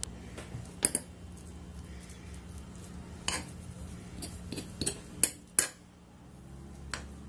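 Metal fork tapping and scraping on a cling-film-covered glass board while pressing down a soft mixture: several sharp clicks over a low steady hum.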